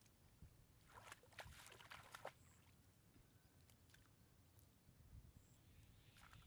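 Near silence: faint rustling and crackling clicks for about a second, then a few isolated ticks.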